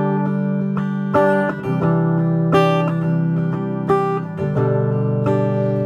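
Guitar strumming a slow run of chords through a Fender Marine Layer Reverb pedal set to a mild reverb, a new chord struck about every second, each ringing on into the next.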